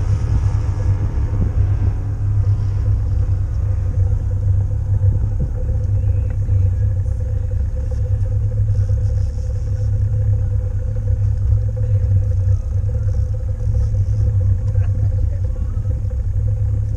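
Steady low rumble of wind buffeting the microphone over a boat's motor, with a faint steady hum running through it while the boat trolls with lines out.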